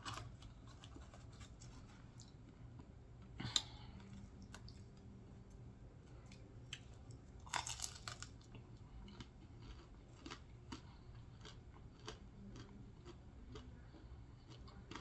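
Faint chewing and mouth clicks of someone eating a pan-fried pork potsticker, with two louder sharp sounds about three and a half and seven and a half seconds in.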